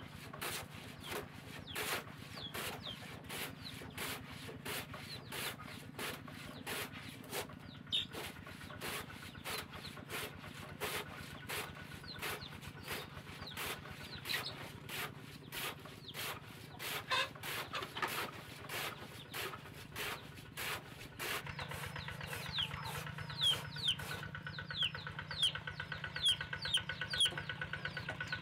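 Rhythmic scraping strokes of a blade shaving thin curls off a piece of wood, about two strokes a second, with chickens clucking and chirping throughout. About 21 seconds in a steady hum comes in and the chicken calls grow louder.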